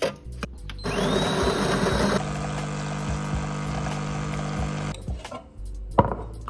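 Automatic bean-to-cup espresso machine brewing: a rough, loud grinding of the beans about a second in, then a steady pump hum as espresso pours into a glass, stopping about five seconds in. A sharp clink near the end.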